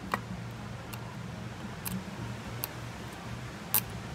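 About five sharp, irregular small ticks of a thin metal pick touching and scraping in a crack in hard, finished wood, the loudest near the end, over a low steady hum.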